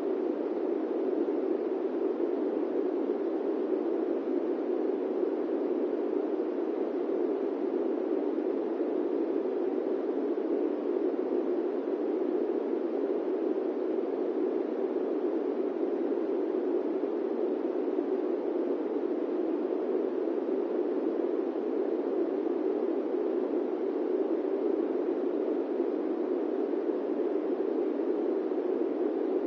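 Steady airplane cabin noise: an even rushing hiss centred low in pitch, unchanging throughout, with no separate events.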